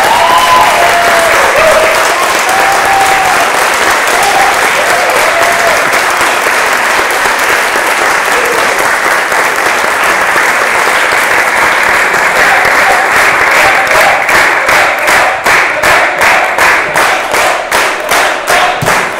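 Audience applauding, with a few voices calling out over it in the first seconds. About two thirds of the way in the applause falls into rhythmic clapping in unison, about two to three claps a second.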